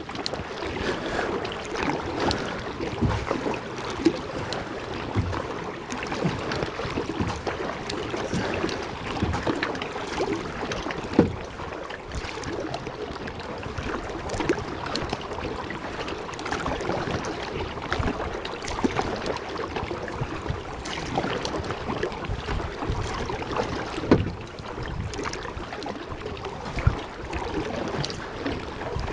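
Kayak being paddled: the paddle blades dip and splash in the water at an uneven pace over a steady wash of water noise, with a few sharper knocks.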